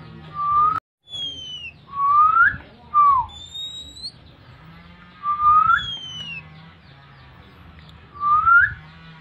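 Clear whistled lure calls for an Oriental magpie-robin (kacer) in breeding condition: pure whistles in pairs, one rising and one falling, repeated about every three seconds. The sound cuts out briefly just before the one-second mark.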